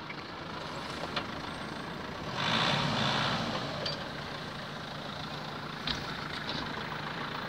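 Off-road SUV engine running steadily as the vehicle crawls over rough hillside ground, swelling louder for about a second and a half some two and a half seconds in, with a couple of light clicks.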